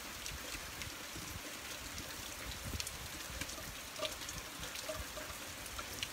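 Steady rain falling on a wet road and puddles, an even hiss with scattered sharp drop ticks.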